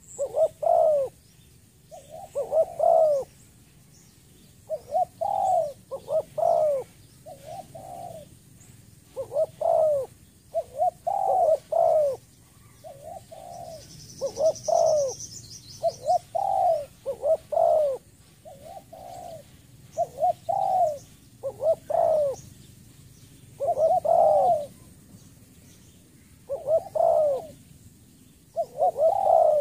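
Spotted dove cooing: short phrases of two or three low, arching coo notes, repeated every second or two.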